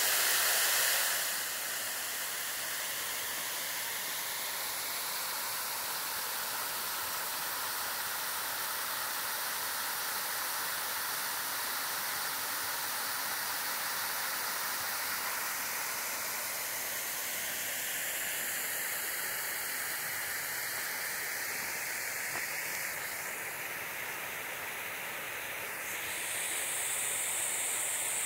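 Decorative fountain jets spraying water upward and splashing back into their basins, heard as a steady hiss of falling water.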